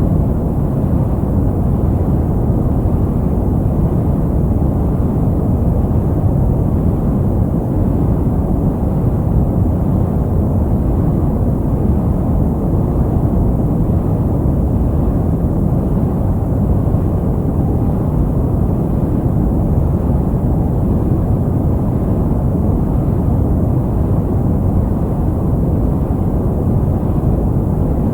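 Steady synthetic sleep noise for soothing a baby: a deep, muffled rushing sound with its weight low down and little hiss, unchanging and without rhythm.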